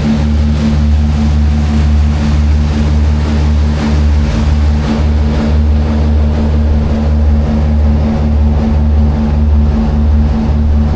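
Tour boat's engine running steadily at cruising speed, a loud low drone with water rushing along the hull.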